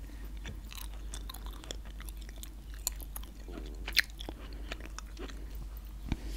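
Chewing gum close to a microphone: irregular wet mouth clicks and smacks, with one sharper click about four seconds in.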